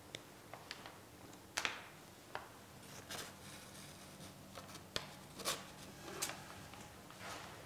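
Whiteboard eraser wiping across the board in a few short, faint rubbing strokes, spaced out over several seconds.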